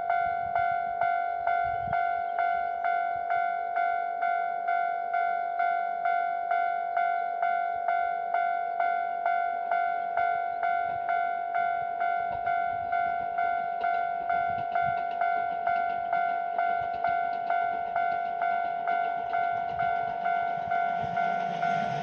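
Japanese level-crossing warning bell (the 'kan-kan' alarm) ringing steadily about twice a second at one pitch, signalling that a train is coming. Near the end the noise of an approaching train starts to rise under it.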